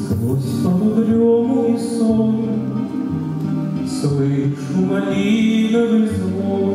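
A man singing into a microphone, accompanied by a grand piano.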